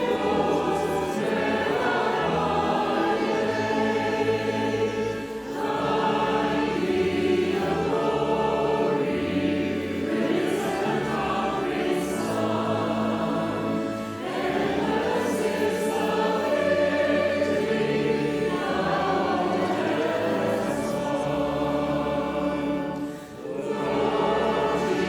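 A choir singing a hymn over an instrumental accompaniment of held bass notes. It moves in long phrases with brief breaks between them, three in all.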